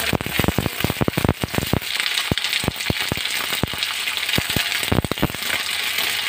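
Onion and capsicum sizzling in hot oil in a kadhai, with frequent sharp crackles and pops.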